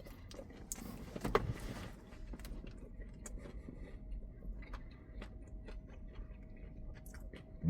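Someone biting into a crispy fried chicken breast and chewing. A crunchy bite in the first two seconds is followed by faint, scattered chewing clicks.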